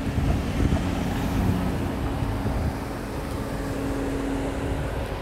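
Street traffic: a car driving past close by, with a steady low hum that fades out near the end and wind rumbling on the microphone.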